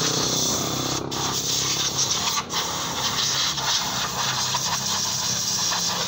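Hose-fed canister spray gun hissing steadily as it sprays the motorcycle's engine and chain, cut off briefly twice, about one and two and a half seconds in.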